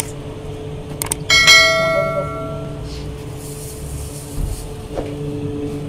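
A mouse-click sound effect, then a second click and a bright bell ding that rings out for about a second: the notification-bell sound of a subscribe-button animation. Under it runs a steady machine hum with a low rumble.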